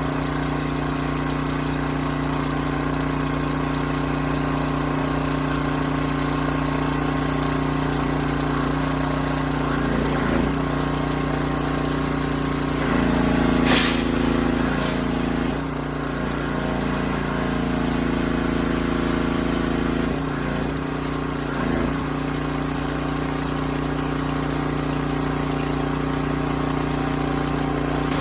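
Freshly rebuilt gasoline engine of a Craftsman 3000 psi pressure washer running steadily and driving its pump. The engine note shifts several times as the load changes, with a louder stretch in the middle and a short sharp hiss-like noise about fourteen seconds in. The pump struggles a little to build pressure.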